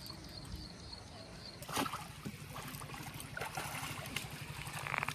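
A small hooked fish flapping on the line and being grabbed by hand, with a sharp knock about two seconds in and a few lighter clicks, over a steady low drone.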